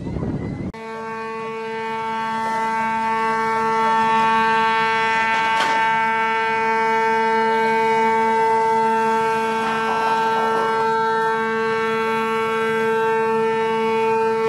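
Ship's horn sounding one long, unbroken blast at a steady pitch, swelling over the first few seconds and then holding. It starts after a brief rush of wind noise at the very beginning.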